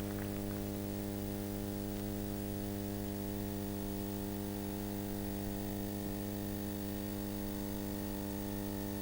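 Steady electrical mains hum with a stack of evenly spaced overtones, at an even level throughout.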